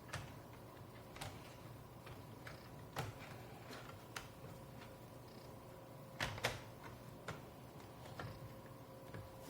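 Scattered light clicks and taps of a plastic laptop bottom cover being fitted and pressed shut, the loudest a quick pair a little after six seconds in, over a low steady hum.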